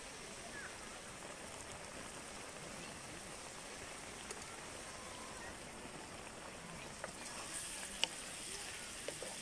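Yogurt-marinated boneless chicken sizzling steadily in hot oil in a frying pan. From about seven seconds in, a wooden spatula stirs it, with a few sharp knocks against the pan.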